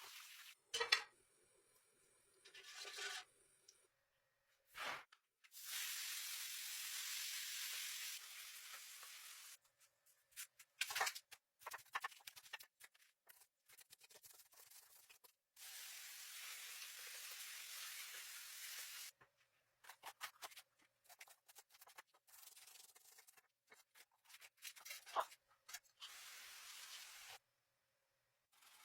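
Kitchen food-preparation noises in short cut-together stretches: several seconds of steady hissing and rubbing at a time, with scattered clicks and knocks, each stretch cutting off abruptly.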